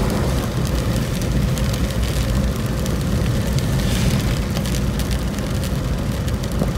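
Steady road and engine noise inside a car moving along a wet road in rain, with fine raindrop ticks on the windshield.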